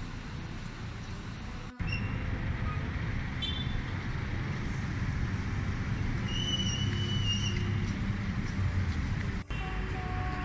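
City street traffic noise that cuts in suddenly about two seconds in: a steady low rumble of passing vehicles. A short high squeal comes partway through.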